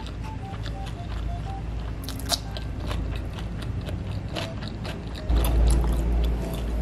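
Close-up eating sounds: chewing fried chicken and rice with sharp wet clicks and smacks from the mouth. A louder low rumble joins about five seconds in as the fingers work the food on the plate.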